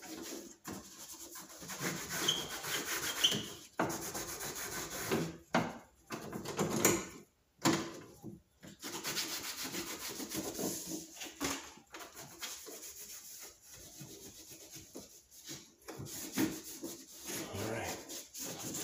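Cloth towel rubbing and wiping over a plastic Lincoln Town Car grille in uneven scrubbing strokes, with a short pause about halfway through.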